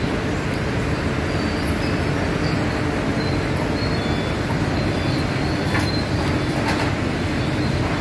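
Steady industrial din of sawmill machinery running, with faint brief high squeals now and then.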